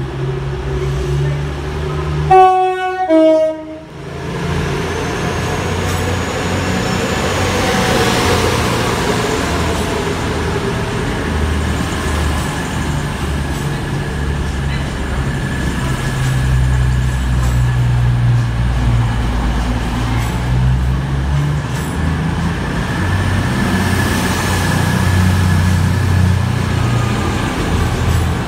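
Two coupled Class 222 Meridian diesel multiple units sounding a loud two-tone horn, a higher note then a lower one, about two seconds in. Their underfloor diesel engines then run under power with a steady low drone as the train pulls away past the platform.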